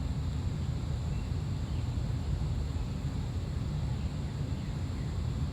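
Casablanca Wailea six-blade ceiling fan running on low speed, its draft buffeting the microphone as a steady low rumble.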